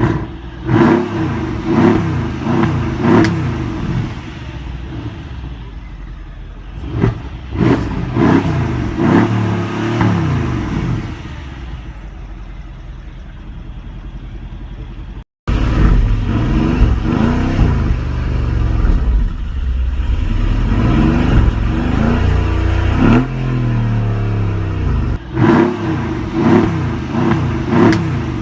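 Mercedes-AMG CLS 63's 5.5-litre twin-turbo V8 being revved again and again in short blips, the pitch rising and falling each time, with pops and crackles from the exhaust. The sound cuts out for a moment about halfway through, then the revving carries on.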